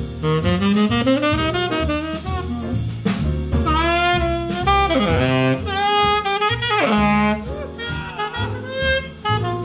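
Tenor saxophone soloing in a swing jazz tune, quick runs climbing and falling, with several sliding, bent notes midway. Upright bass and drum kit keep time underneath.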